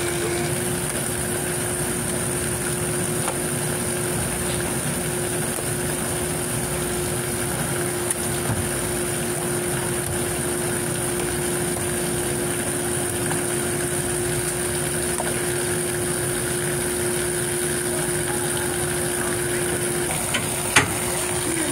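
A steady engine-type machine hum with a constant tone, holding even throughout, and a single sharp knock near the end.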